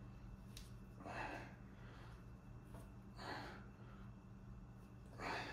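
Three forceful breaths, about two seconds apart and the last the loudest, from a man doing dumbbell floor-press reps, over a low steady hum.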